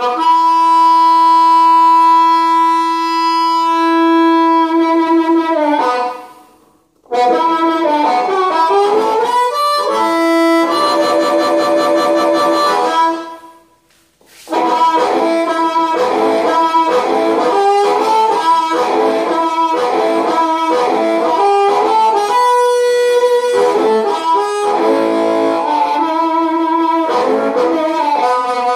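Blues harp in A played into a handheld harmonica microphone and amplified through a small amp. It opens on one long held note, then moves into blues phrases, with two short breaks, one about six seconds in and one about halfway. The player's hands start with a loose cup around the mic and tighten it gradually, which shifts the tone.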